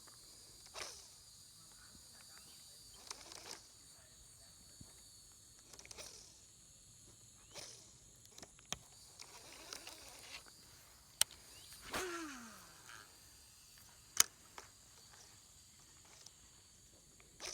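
Faint steady insect chorus, with scattered clicks, swishes and handling noises, two sharp clicks standing out about eleven and fourteen seconds in.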